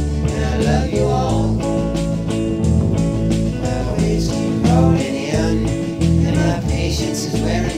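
Instrumental break of a rock song: electric guitar over bass and drums with a steady beat.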